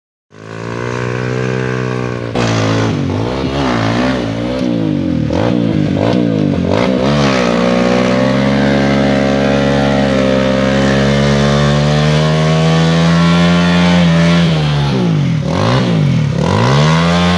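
Trail motorcycle engine revving: a run of quick throttle blips up and down, then held at high revs for several seconds, then dropping and rising again twice near the end.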